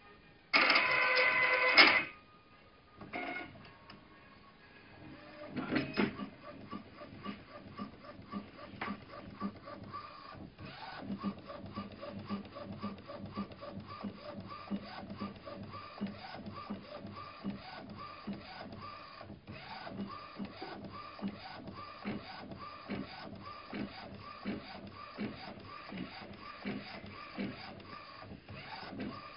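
Golf ball printing machine running, its mechanism working in a steady, evenly repeating rhythm. A loud tone lasting about a second sounds just after the start.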